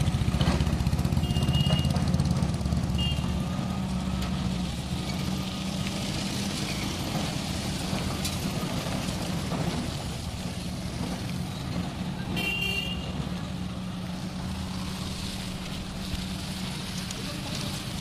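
Motor grader's diesel engine running steadily in mixed road traffic, its low drone loudest at first and slowly fading. Short vehicle horn toots sound a second or so in, at about three seconds, and longest about twelve seconds in.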